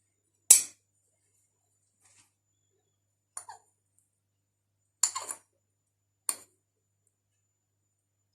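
Four short, sharp knocks or taps spaced a second or more apart, the first the loudest.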